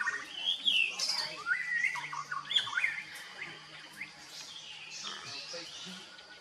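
Several birds chirping and squawking in quick, overlapping calls that glide up and down in pitch, with a faint steady low hum underneath.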